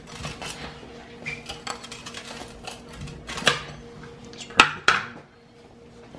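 Pizza wheel rolling through a cheese pizza and scraping against the metal pizza pan beneath, with light scrapes and clicks. There are sharper metal clanks about three and a half and four and a half seconds in.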